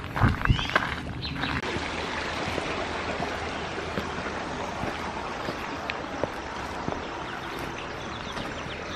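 A creek running with a steady rushing sound, with a couple of footsteps on a dirt trail in the first second.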